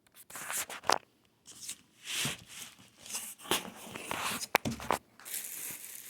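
Cardboard and plastic shipping packaging around a guitar case being handled and rustled in irregular bursts. Two sharp clicks stand out, about a second in and again about three-quarters of the way through.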